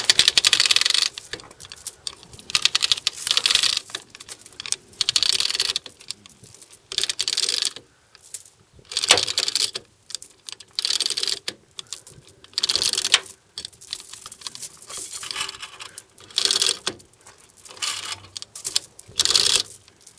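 A ratchet being cranked in repeated strokes, each stroke a quick run of metal clicks, about one stroke every one to two seconds, tensioning a pull on a crash-damaged Ford Capri front end.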